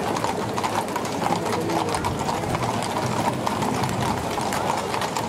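Several horses walking on a paved street, their hooves clip-clopping in a dense, overlapping clatter.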